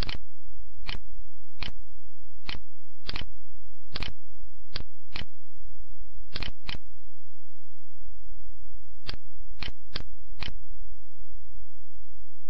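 About fourteen sharp single clicks of a computer mouse and keyboard, unevenly spaced with short pauses between groups, over a steady low electrical hum.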